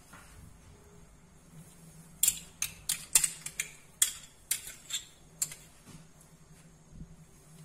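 A quick run of about ten sharp clicks and taps of kitchen utensils over three seconds as tomato paste is spooned onto the food, then quiet handling, over a faint steady low hum.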